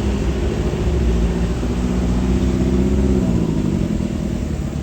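A tour bus's diesel engine running, its pitch rising a little and then dropping back about three and a half seconds in.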